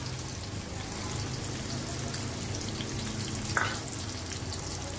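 Sliced onions and cumin seeds frying in hot ghee in an iron karahi: a steady sizzle with fine crackling as the tadka is fried toward golden brown. One brief, louder sound comes about three and a half seconds in.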